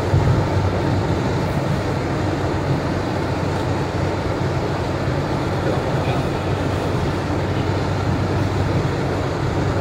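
Steady road noise inside a moving car on a wet highway: tyres hissing on the rain-soaked asphalt over a low, even hum of the engine and drivetrain.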